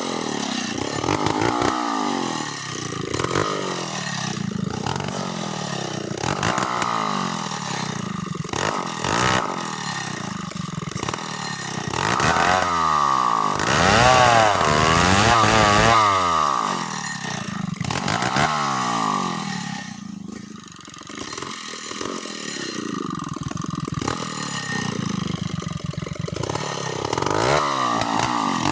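Chainsaw with a 25-inch bar cutting through mango wood, its engine pitch rising and falling as it labours in the cut and revs free. The engine drops briefly about two-thirds of the way through, then picks up and cuts again.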